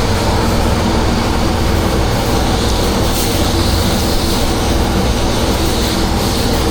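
Engine-driven 10 GPM pressure washer running steadily, with the hiss of water spraying over the engine's low drone.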